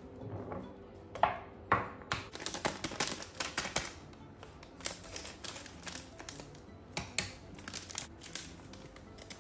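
Scissors snipping open a plastic spice packet, and the packet crinkling as it is handled: a run of sharp, irregular clicks and crackles.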